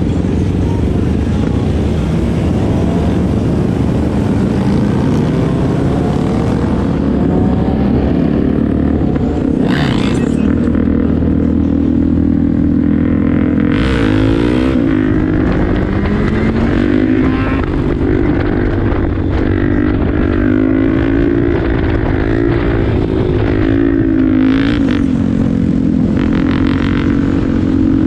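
Motorcycle engines running on the move with wind rushing over the microphone. The engine pitch climbs and drops with gear changes about halfway through and again near the end.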